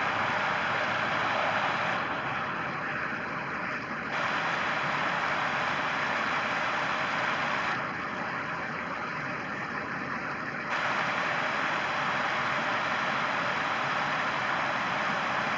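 Creek water rushing steadily over a low ledge and around rocks. Twice, for a few seconds each, the sound goes a little duller and quieter.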